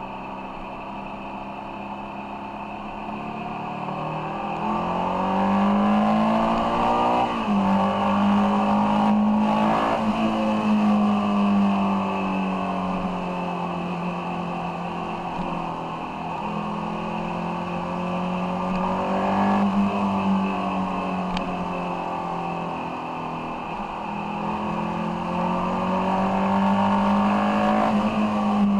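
Ducati Monster 696's air-cooled L-twin engine running under way, heard from the bike itself. Its note climbs and drops several times as the rider opens and closes the throttle, first rising about four seconds in.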